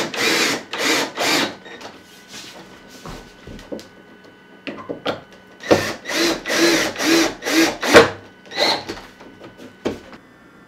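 Cordless drill driving screws into the cabinet's wooden trim, running in short bursts: three in quick succession at the start, then a run of shorter bursts from about five seconds in, with a last one near nine seconds.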